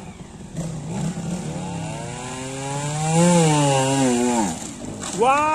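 Trials motorcycle's single-cylinder engine being revved. The pitch climbs for a couple of seconds, peaks and drops away, then near the end it jumps sharply to a high pitch and is held there.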